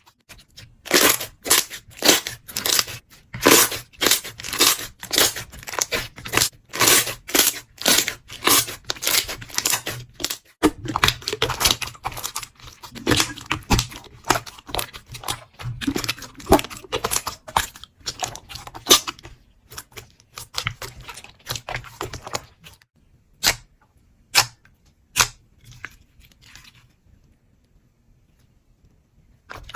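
Slime being squeezed and stretched by hand, giving a dense run of sharp crackling and popping sounds. After about twenty seconds the pops thin out to a few scattered ones, then nearly stop near the end.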